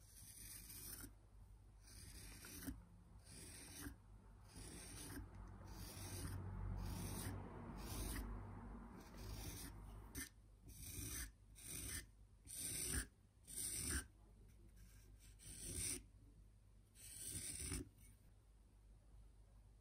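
Scraping strokes across the surface of a slip-coated clay pot. They run together at first, then come as separate strokes about once a second.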